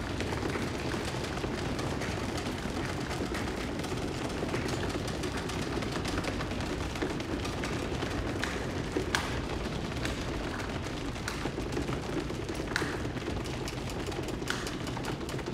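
Applause from a group of people, a steady dense clapping with a few sharper, louder claps standing out now and then.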